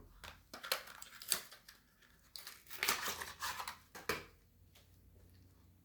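Crinkling, scratchy handling noise in a quick run of short strokes, stopping about four seconds in.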